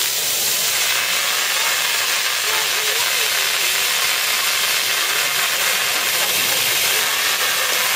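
Steady hiss of water sprayed from a hose over an Asian elephant's head and back.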